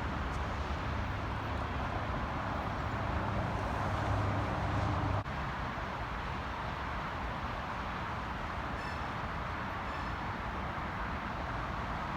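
Steady rumbling noise of a train running at trackside, with a low hum that cuts off suddenly about five seconds in.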